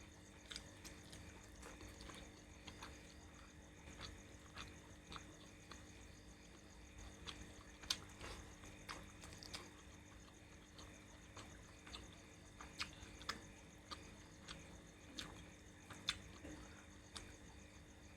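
A person eating curry: faint, irregular wet mouth clicks and smacks while chewing, with one louder click about eight seconds in.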